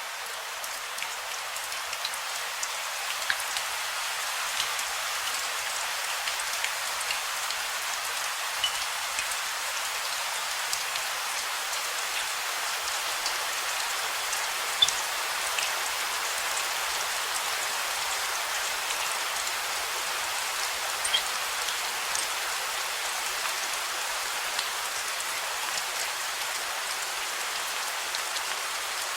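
Steady rain falling: an even hiss with individual drops heard as scattered sharp ticks.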